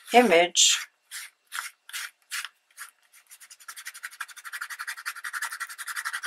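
A soft cloth rubbing over an embossed magazine image dampened with half rubbing alcohol, half water, to lift the ink. First come a few separate strokes, then from about halfway a fast, steady back-and-forth scrubbing.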